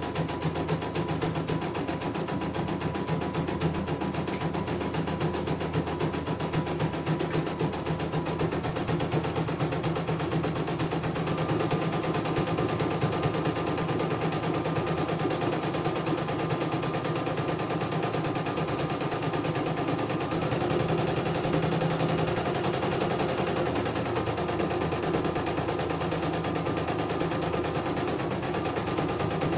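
CNY E900 computerised embroidery machine stitching a design: a rapid, steady clatter of needle strokes as the hoop carriage steps the fabric about. After the repair of its jammed drive and dead power supply, the machine is running through a test embroidery.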